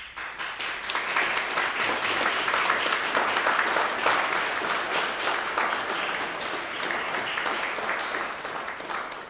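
Audience applauding. It breaks out suddenly, fills in over the first second and begins to thin out near the end.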